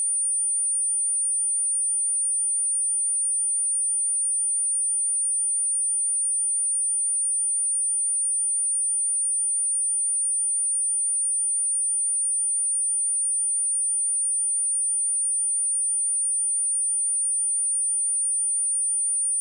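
A single steady high-pitched sine tone at 9298 Hz, held at a constant level: a synthetic test tone for checking speakers or shaking dust and water out of them.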